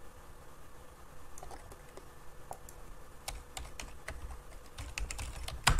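Computer keyboard and mouse clicking: a few scattered clicks at first, then a quicker run of key taps from about three seconds in, ending in one louder click.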